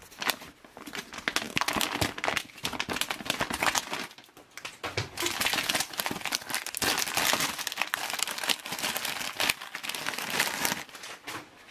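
Plastic MRE packaging crinkling as a clear plastic bag of ration components is handled and pulled open, with a short lull partway through.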